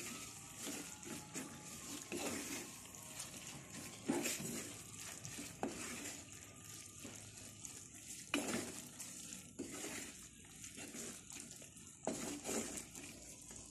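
Wooden spoon stirring and scraping a thick masala in a clay pot, in irregular strokes every second or two, over a low sizzle of frying.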